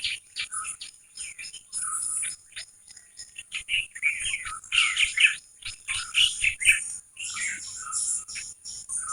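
Several small birds chirping in quick, overlapping calls, with a steady high-pitched hiss underneath.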